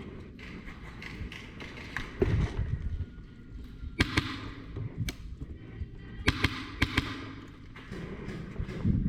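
Movement noise from a player during close-quarters airsoft: low thuds like footsteps and gear bumping, with sharp clicks or snaps coming in quick pairs three times, about 4 s, 6.3 s and 6.8 s in.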